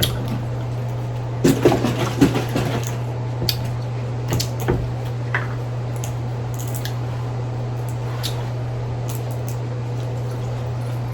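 Crawfish being shelled and eaten in sauce: a run of short wet crackles and squishes a second or two in, a few more around the middle, then only faint ticks, over a steady low hum.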